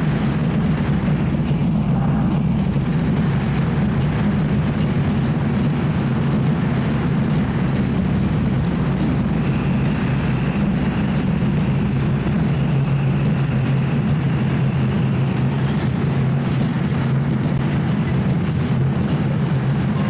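Steady, loud din of a large protest crowd with drumming, without a break.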